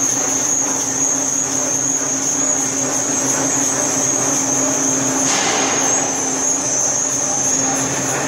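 Central-drum flexographic printing machine running steadily: a loud, even mechanical noise with a constant high whine and a low hum, a little more hiss from about five seconds in.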